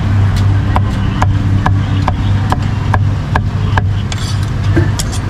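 Cleaver chopping roast beef on a thick wooden chopping block, a bit over two even strikes a second for about three seconds, then a short scrape and a couple more knocks near the end, over a steady low hum.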